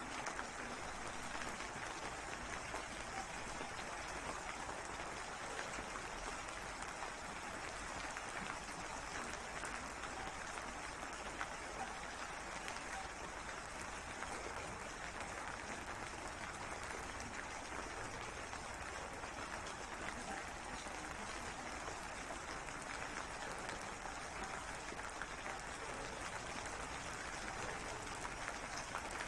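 Steady rain falling: an even hiss of many drops, with no change in strength.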